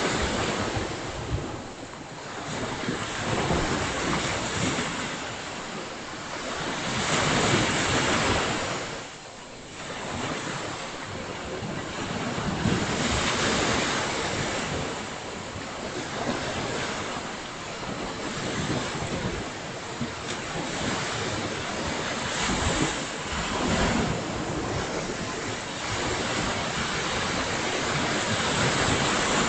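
Ocean surf breaking and washing up the beach, the noise swelling and easing with each wave, with wind buffeting the microphone.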